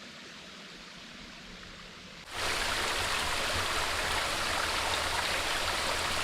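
Small waterfall on a trickling stream: a faint steady hiss of water at first, then the rush of falling water comes in abruptly about two seconds in and runs on steady and much louder.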